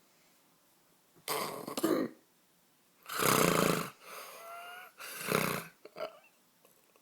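A man snoring loudly in his sleep: three harsh snores about two seconds apart, with a quieter whistling breath between the second and the third.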